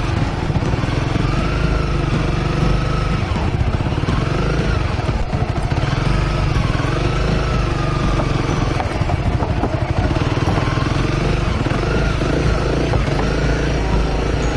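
Honda CRF250L's single-cylinder engine running as the bike is ridden, its pitch rising and falling with the throttle, over a steady low rumble of wind.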